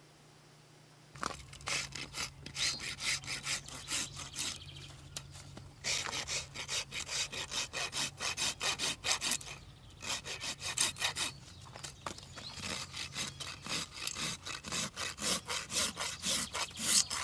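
Steel hoof rasp drawn in quick repeated strokes across a Belgian draft horse's hoof wall, filing a bevel (a mustang roll) into its outer edge. The rasping starts about a second in and pauses briefly twice.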